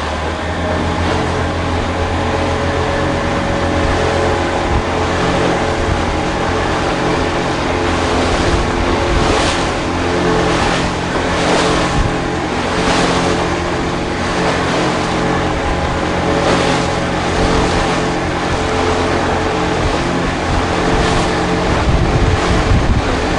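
Motorboat engine running steadily under way, with water splashing against the hull every second or two and wind on the microphone.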